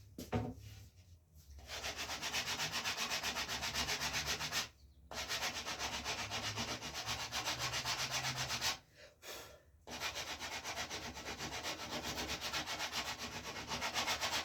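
Sandpaper on a sanding block rubbed rapidly back and forth over the rawhide backing of a wooden bow, in three runs with short pauses between them. This is sanding down rawhide that has bonded around the edge of the bow.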